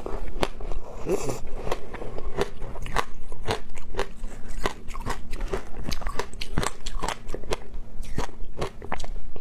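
Close-up crunching and chewing of a block of shaved ice coated in passion fruit pulp: a dense, continuous run of crisp crackling crunches as the ice is bitten and chewed.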